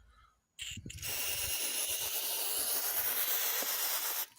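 Small aerosol can of silicone lubricant spraying in one steady hiss of about three seconds, starting about a second in after a brief handling noise and cutting off sharply near the end. It is being sprayed onto a car door trim panel where it rubs and creaks.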